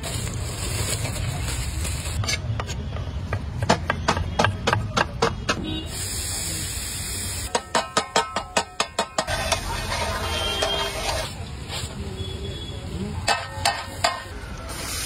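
Food sizzling on a large flat iron griddle while a metal spatula scrapes and taps on it; runs of sharp taps, three or four a second, come a couple of seconds in and again just past the middle.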